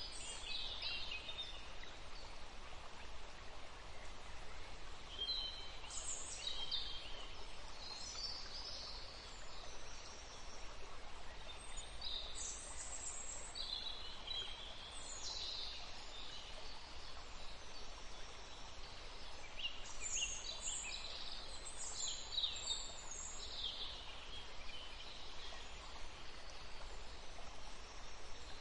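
Birds chirping in short, high calls that come in scattered clusters, over a steady background hiss.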